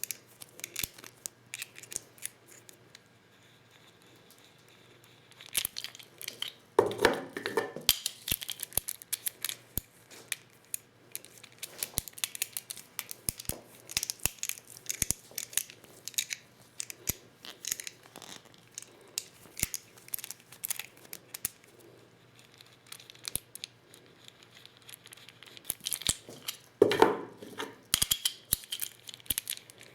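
Hand-reloading 12-gauge shotgun shells with a Lee Loader: a run of sharp clicks and taps from the tools and shell cases. Two longer, louder scrapes stand out, about a quarter of the way in and near the end.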